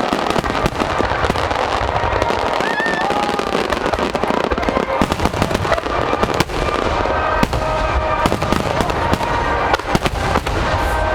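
Aerial fireworks bursting and crackling in rapid succession: many sharp reports over a constant low rumble.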